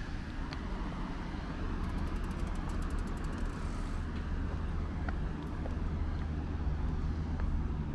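Street traffic noise: a steady low motor-vehicle engine rumble, with scattered light ticks and a brief run of rapid high ticks about two seconds in.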